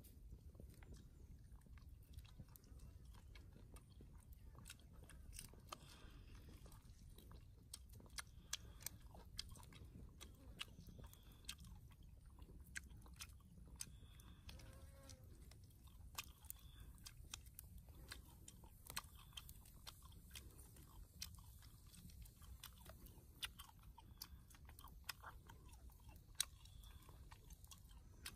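A person chewing and crunching pieces of a large spider close to the microphone: many small, sharp crunches scattered throughout over a quiet background.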